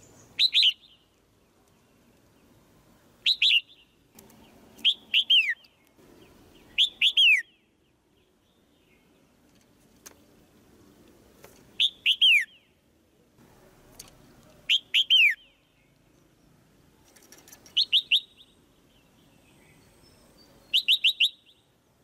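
Female red-whiskered bulbul giving sharp 'jiek' calls: short clusters of two to four quick downward-sliding notes, repeated about eight times with gaps of one to four seconds.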